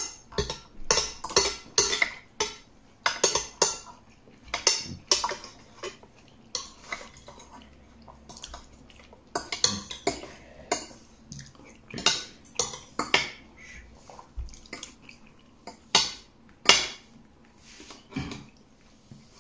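Metal spoon and fork clinking against a plate while eating: an irregular run of short, sharp clinks, some ringing briefly.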